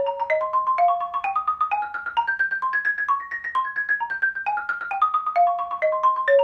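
Wooden-bar xylophone played with two mallets: a steady stream of single struck notes running up a scale pattern in A-flat to a peak about halfway through, then back down to the starting note.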